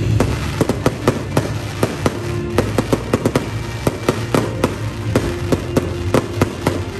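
Fireworks going off in a rapid, irregular string of sharp bangs and cracks, several a second, with music playing underneath.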